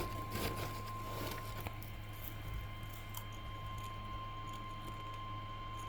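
A steady single-pitch alert tone just above 1 kHz, the kind that comes before an emergency weather warning message, with a fainter higher tone joining about two seconds in. Under it runs a steady low hum, with a few light clicks near the start.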